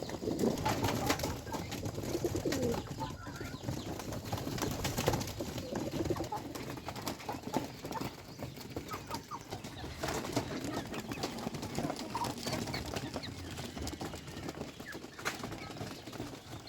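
A flock of farm birds calling softly while feeding, over a steady scatter of small clicks from pecking at the feed.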